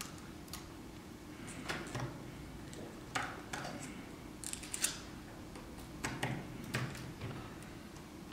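Scattered small sharp clicks and taps as an iPhone 4S circuit board and its parts are handled and seated back into the phone's chassis, over a steady low hum.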